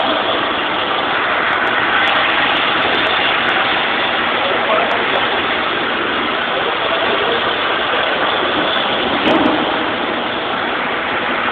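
Loud, steady din of commercial kitchen machinery running, with a few light clicks and a brief clatter about nine seconds in.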